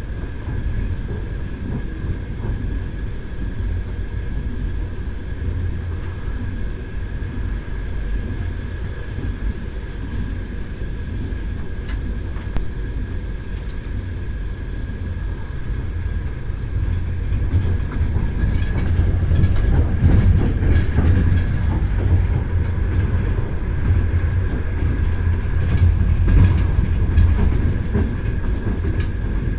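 Train running along the track: a steady low rumble with the clatter of the wheels over the rails and a faint steady high whine. About two-thirds of the way through it grows louder, with a run of sharp clicks and rattles.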